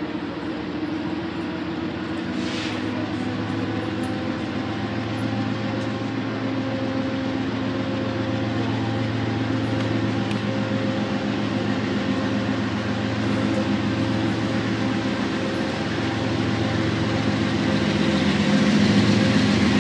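Freight train rolling past, with the steady drone of its diesel locomotive engines over a rushing haze of rolling noise, growing gradually louder toward the end.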